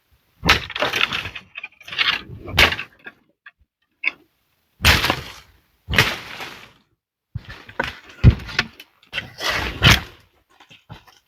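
An irregular series of about ten sharp cracks and knocks, each with a short rough tail, separated by brief silences.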